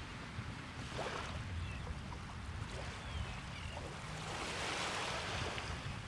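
Ocean waves washing onto the beach, swelling and easing in surges, over a low wind rumble on the microphone. A few faint short seagull calls come through between the first two surges.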